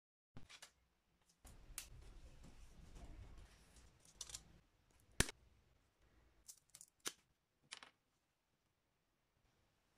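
Quiet handling of twigs and a tape measure on a tabletop: a soft rustle, then a few short sharp clicks, the loudest about five seconds in.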